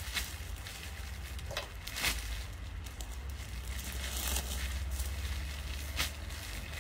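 Cloth rustling and brushing as a floral blouse is handled and pulled on over the head. A few short ticks punctuate it, over a steady low hum.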